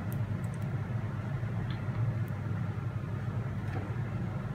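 Steady low rumble of a gas stove burner heating oil in a saucepan, with a few faint ticks.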